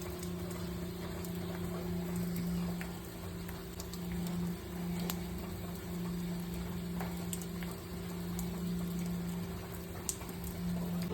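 Hot water, over 160 degrees, spraying and pattering from the top of an expansion tank that has failed from corrosion, over a steady low hum in the mechanical room, with scattered small ticks of drips.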